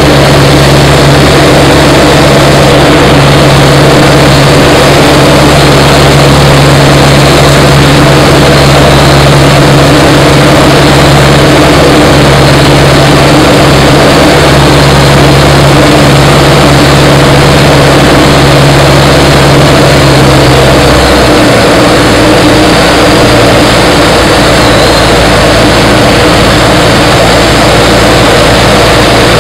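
Light single-engine piston airplane's engine and propeller heard inside the cockpit: a loud, steady drone. The engine note steps down slightly in pitch about two-thirds of the way through.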